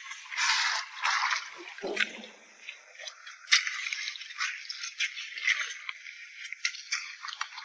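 Irregular clicks, scrapes and wet squelches from hand-catching soldier crabs on wet sand, with a brief lower rustle about two seconds in.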